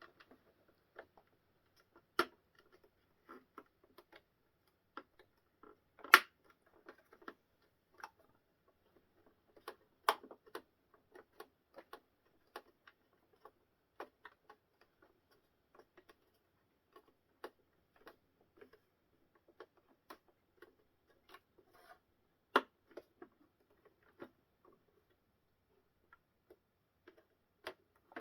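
Parts of a model tank kit being handled and fitted together on a tabletop: scattered light clicks and taps at an irregular pace, with a few louder knocks, the loudest about six seconds in and another about ten seconds in.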